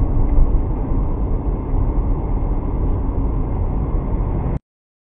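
Steady low road and engine rumble inside a moving car, picked up by the dashcam's microphone; it cuts off suddenly about four and a half seconds in.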